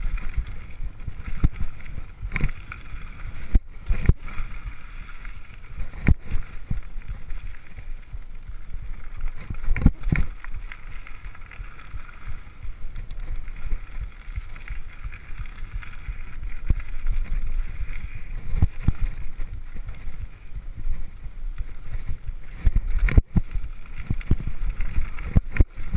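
Mountain bike rolling fast down a dirt singletrack, picked up by a camera riding on the bike: a constant rumble of tyres and wind buffeting the microphone, broken by sharp knocks and rattles each time the bike jolts over a bump.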